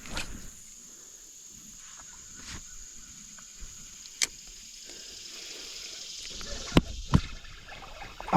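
Steady high-pitched insect drone, with scattered sharp clicks and knocks. Two louder knocks come close together near the end.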